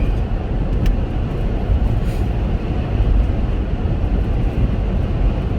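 Steady low road and engine noise inside the cabin of a moving Chevrolet Captiva SUV.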